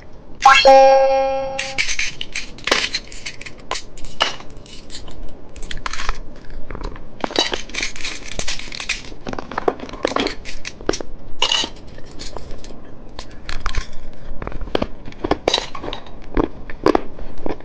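Plastic candy packaging being handled and torn open, in irregular crinkles and crackles. About half a second in, a short pitched chime sounds for about a second.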